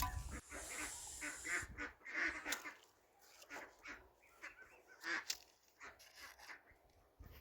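Farmyard fowl calling in short, irregular calls, with a knock right at the start.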